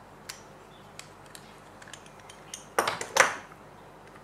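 Light metallic clicks and taps from a steel wristwatch case being opened by hand with a rubber caseback-opener ball and tweezers, with a louder run of clinks about three seconds in.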